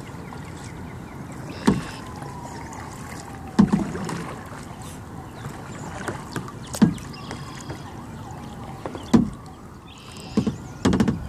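Kayak paddle strokes on calm water: five sharp splashes and knocks of the paddle, roughly every two to three seconds, over a steady hiss of water and air.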